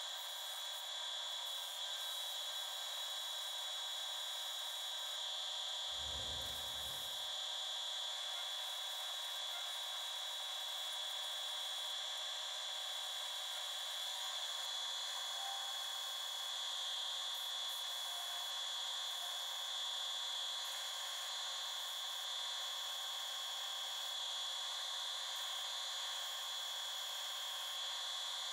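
Sycamore spatula blank held against a 5-inch sanding disc spinning on a wood lathe's spindle: a steady rubbing hiss of abrasive on wood over a high steady whine. A brief low thump comes about six seconds in.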